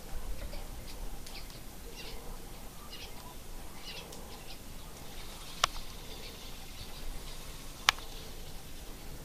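Faint, short, high chirps repeating irregularly, about every half second, and two sharp clicks a little over two seconds apart in the second half, the clicks being the loudest sounds.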